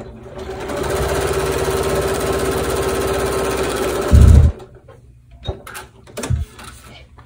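Domestic sewing machine stitching a paper-pieced seam, picking up speed in the first second and then running at a steady fast rate. It stops about four seconds in with a loud, low thump, and a couple of sharp clicks follow.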